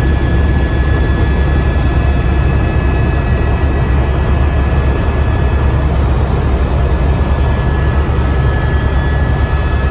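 Helicopter cabin noise in flight: a steady, loud, low drone from the rotor and engine, with a thin high whine over it.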